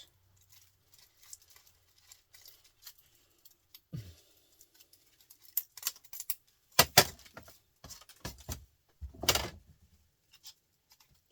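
Small pieces of metal scrap handled and set down by hand: scattered clinks and clatters, with two louder knocks in the second half.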